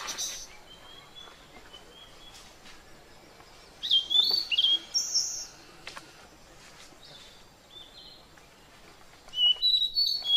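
Birds chirping: two bursts of quick, high chirps, about four seconds in and again near the end, over a faint steady outdoor background.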